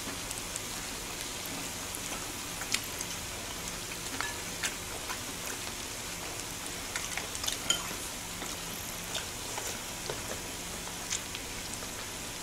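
Pork belly sizzling on a flat griddle: a steady frying hiss with scattered small clicks and pops.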